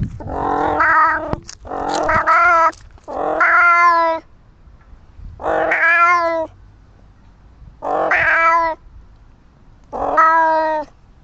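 Domestic cat meowing loudly over and over: six long, drawn-out meows of about a second each, roughly two seconds apart.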